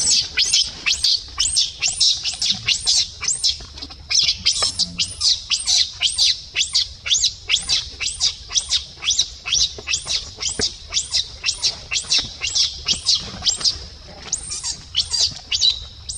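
Infant macaque crying in distress: a rapid, unbroken string of shrill screams, about three a second, each rising and falling in pitch, with a brief break about four seconds in.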